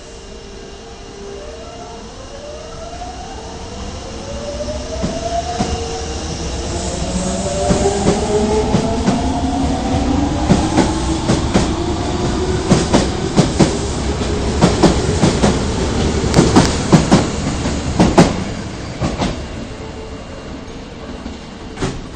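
Osaka Metro 22 series subway train pulling out of the station: its traction motor whine rises steadily in pitch as it accelerates. From about ten seconds in, the wheels clack loudly and rhythmically over the rail joints as the cars pass, and the sound dies away near the end.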